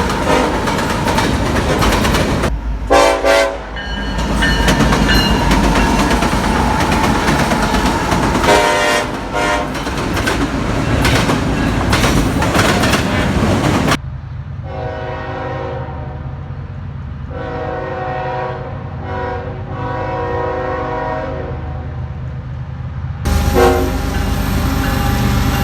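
Train horns sounding chords over the rumble and wheel clatter of passing trains. About halfway through the sound cuts abruptly to a quieter horn giving several separate blasts, then cuts back to loud train noise near the end.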